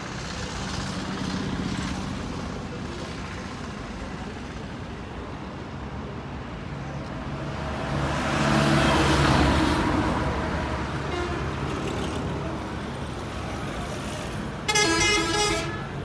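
Road traffic going by, with one vehicle passing close and loud about eight to ten seconds in. Near the end a vehicle horn honks.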